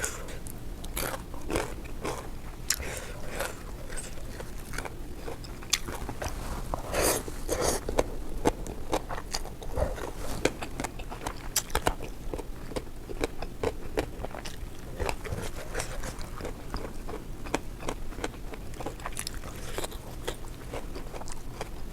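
A person eating close to the microphone: irregular crunching and chewing of food, with bites every second or so, over a faint steady low hum.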